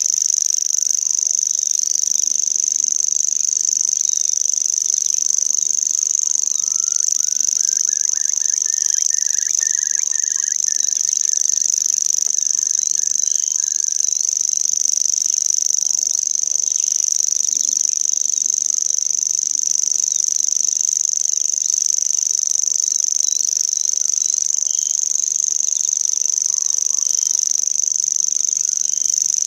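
Continuous high-pitched insect trilling, like crickets, running steadily throughout. About six seconds in, a bird's fast run of repeated notes rises in pitch and then holds level for several seconds before stopping.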